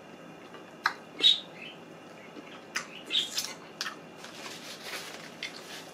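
Close-up wet mouth noises of someone eating saucy seafood: a string of sharp lip smacks and slurps while chewing, the loudest about a second in and a cluster around three to four seconds in.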